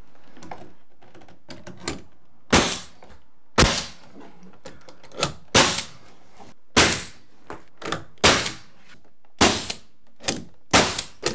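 RIDGID pneumatic angled finish nailer firing nails one at a time through a door's casing into the jamb and framing: about ten sharp shots at uneven spacing, with lighter clicks between them.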